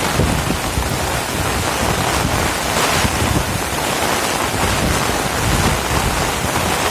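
Heavy rain pouring down while strong wind gusts buffet the microphone in low, uneven rumbles.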